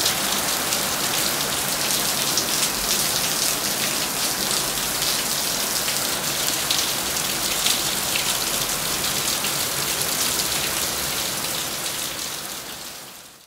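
Heavy rain pouring down, a dense steady hiss of drops hitting the ground; it fades out near the end.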